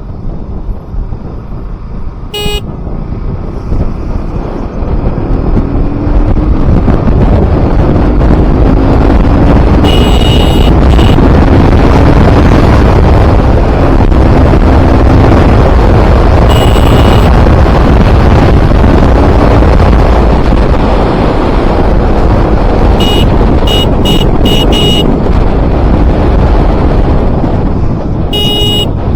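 KTM RC 200's single-cylinder engine pulling under way with a heavy rush of wind and road noise, building in loudness over the first few seconds and rising in pitch as the bike picks up speed. Vehicle horns honk in short blasts: once about a third of the way in, again past halfway, a run of quick beeps later, and once near the end.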